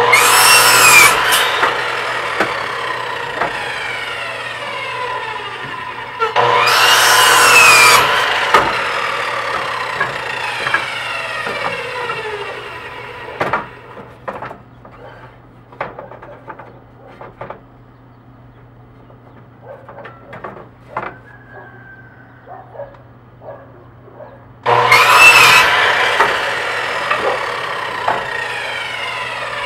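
Power miter saw cutting wooden deck spindles three times: each cut starts with a loud burst as the blade goes through the wood, then a falling whine as the blade winds down. Between the second and third cuts come short knocks and clatter of the lumber being handled.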